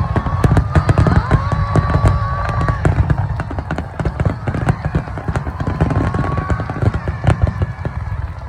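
Fireworks display going off: a dense run of rapid bangs and crackling over a heavy low rumble.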